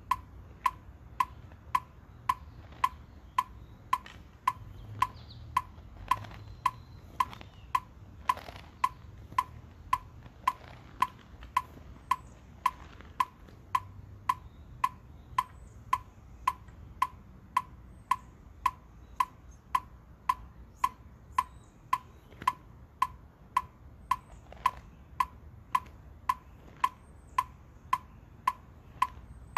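Electronic metronome ticking at a steady tempo, just under two beats a second, each beat a short, sharp pitched click.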